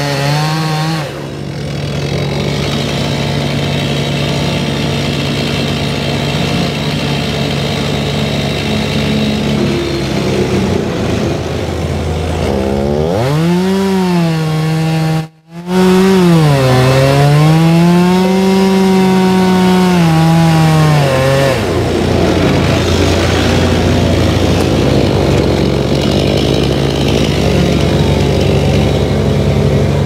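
Chainsaw cutting through the base of a eucalyptus trunk at a steady high speed, then revved up and down several times. A momentary dropout halfway through.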